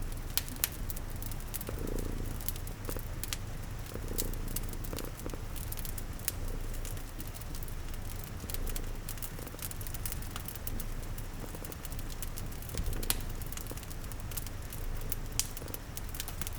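Layered ambience of a cat purring steadily, with irregular sharp pops and crackles of a wood fire over a soft patter of rain.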